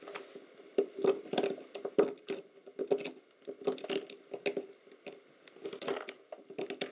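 Small hand tool picking and scraping at hardened yellow potting compound inside an electronics module, making irregular scratches and sharp little clicks as the compound is chipped away.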